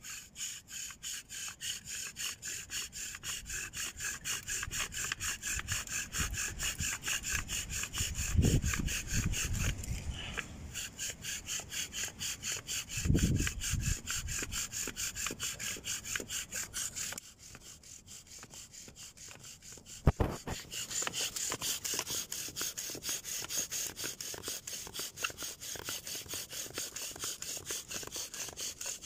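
Bow drill spinning a wooden spindle in a chaga hearth: fast, even back-and-forth bow strokes, about three a second, each a dry rubbing rasp of spindle on chaga, smoking as it goes. The strokes ease off for a few seconds about two-thirds of the way through, then a sharp knock, and the strokes pick up again.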